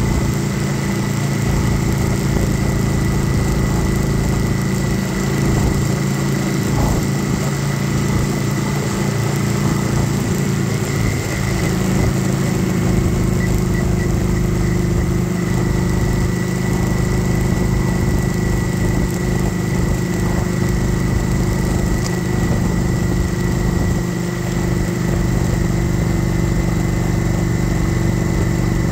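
Kawasaki Vulcan 900 Classic SE's V-twin engine running steadily at an even cruising speed, with no revving, over a steady rush of wind and road noise.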